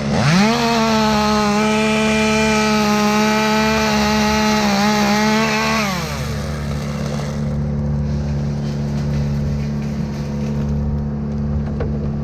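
Chainsaw revved up to full throttle and held there for about five seconds while cutting a poplar limb, then let back to idle. A steady engine drone from the bucket truck runs underneath.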